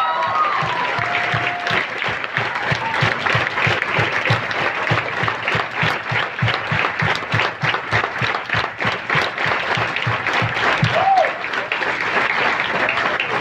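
A crowd clapping hard and continuously, a dense steady patter of many hands.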